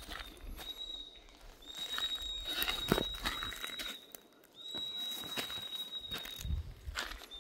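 Footsteps crunching on gravel and dry pine needles, in scattered strokes. A thin, steady, high whistling tone comes and goes in stretches of one to two seconds.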